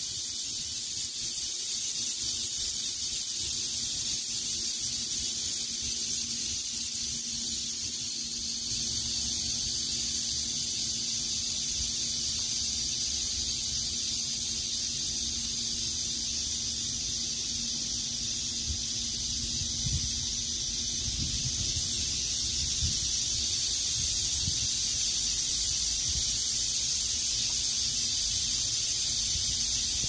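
Steady, high-pitched chorus of summer insects buzzing without a break, with low rumbling wind on the microphone beneath it.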